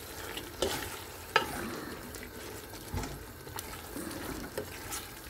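A black spatula stirring raw chicken pieces into frying masala in a steel pot: wet stirring and sizzling, broken by several knocks of the spatula against the pot, the loudest about a second and a half in.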